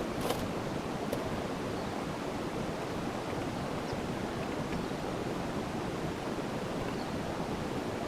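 Steady outdoor rushing noise, with two faint clicks in the first second or so.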